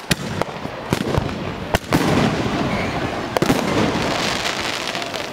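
Consumer fireworks going off: a scatter of sharp bangs, with a dense crackling hiss from about two seconds in.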